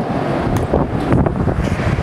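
Wind buffeting the microphone in gusts, over the rumble of a Boeing P-8 Poseidon's twin CFM56 turbofan engines as the jet touches down on the runway.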